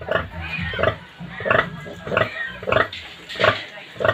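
Native sow grunting in a steady rhythm, a short grunt about every two-thirds of a second, while her newborn piglets suckle. These are the rhythmic nursing grunts a sow makes during a feed.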